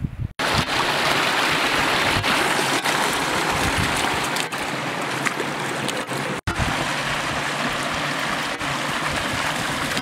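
Shallow, stony beck running close by: a steady rush of water that starts suddenly about half a second in and drops a little about six seconds in.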